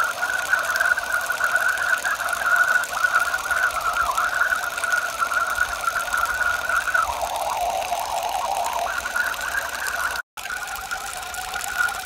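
Water pouring in a steady stream from the outlet elbow of a Dole flow control valve delivering 3/4 gallon a minute, splashing onto the ground. The sound cuts out for a moment near the end.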